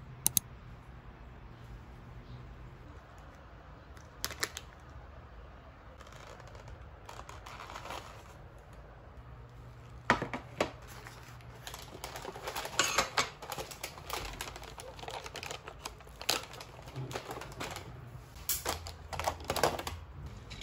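Irregular clicks and knocks of tableware being handled on a wooden tray: a spoon wrapped in a paper napkin and a bowl are set down, with a few sharp clicks early on and a busier run of clatter in the second half, over a low steady room hum.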